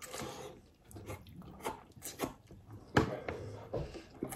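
Close mouth noises of people eating chicken by hand: irregular chewing, biting and lip smacks, with a sharper click about three seconds in.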